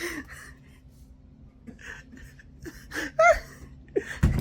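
A person gasping and breathing hard, with a short squeal about three seconds in and a dull thump near the end.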